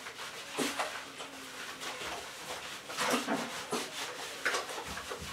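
Hands rubbing and lathering soap into a wet miniature schnauzer's coat in a bathtub, in short irregular bursts of wet rubbing and light sloshing.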